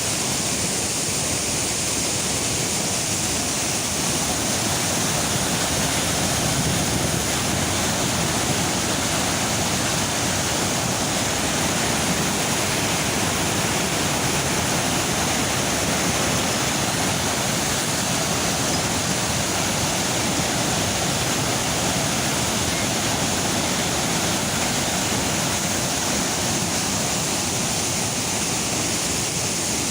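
Niagara River rapids rushing steadily just above the brink of Niagara Falls, a loud even roar of fast whitewater.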